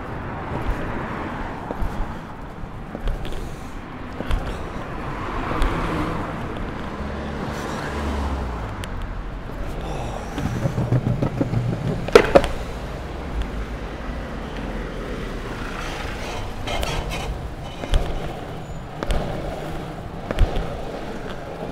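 Longboard wheels rolling over pavement: a steady rough rumble broken by short clacks as the wheels cross paving joints and bumps, with one sharp, loud knock about twelve seconds in.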